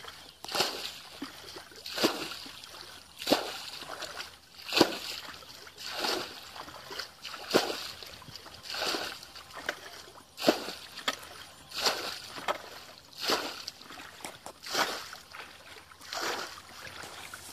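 Water being bailed out of a muddy pool with a plastic bucket: a scoop and a splash of thrown water about every one and a half seconds, in a steady rhythm.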